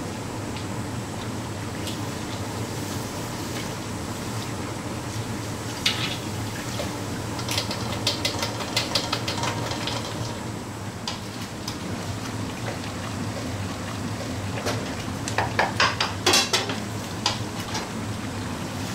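Food deep-frying in a karahi of hot oil, a steady sizzle and bubbling, with metal clinks of a wire ladle against the pan and a steel bowl, in runs about seven to nine seconds in and again around fifteen to seventeen seconds.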